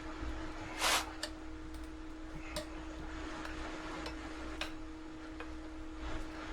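Metal tire irons levering a pit bike tire's bead off the wheel rim: one louder scraping clink about a second in, then a few lighter clicks, over a steady hum.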